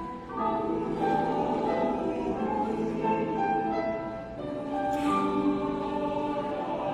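A choir singing in harmony, several voice parts holding long notes that change pitch together.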